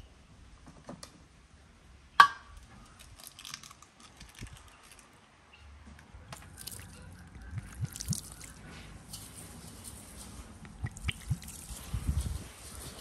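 An egg cracked sharply on the rim of an enamel basin about two seconds in, then a gloved hand kneading raw egg into a basin of salt for a salt crust, a wet crunching and squishing that grows busier in the second half.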